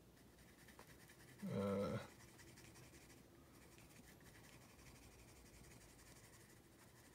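Red coloured pencil shading on paper, a faint continuous scratching. About a second and a half in, a short vocal sound from the person drawing, about half a second long.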